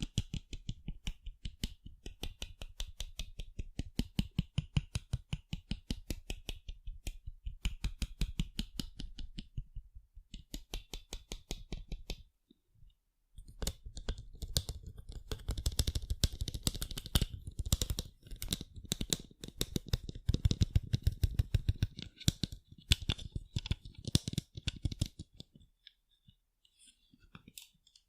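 Rapid tapping on sunglasses, many light clicks a second, pausing briefly about halfway through, then growing denser before thinning out to a few scattered taps near the end.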